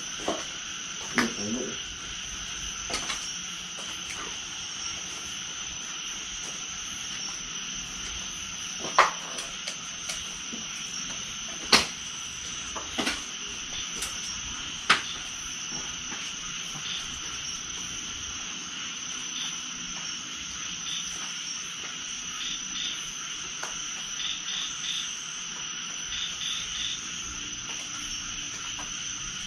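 Steady chorus of insects such as crickets shrilling in the undergrowth, broken by a few sharp snaps or knocks, the loudest about 9 and 12 seconds in.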